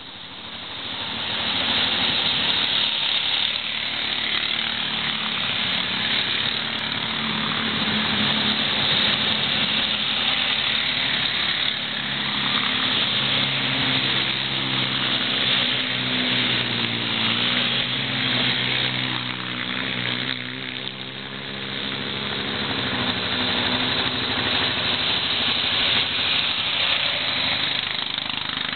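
Several ATV engines running as the quads pass one after another, their pitch rising and falling with the throttle. The sound grows louder over the first couple of seconds as the first machine approaches.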